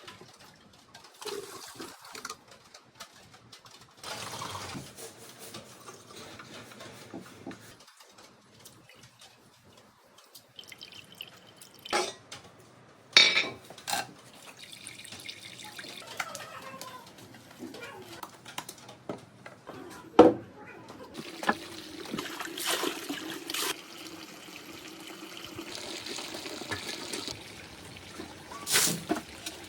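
Water splashing and trickling, broken by several sharp knocks and clicks.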